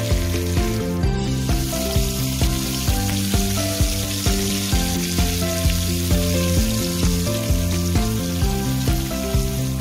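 Lamb chops sizzling in hot oil on a skottle grill, a steady crackling hiss that drops out briefly about a second in, under background music with a steady beat.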